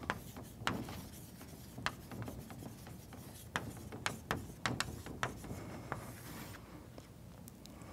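Chalk writing on a blackboard: a string of sharp, irregular taps, with a short scrape about six seconds in.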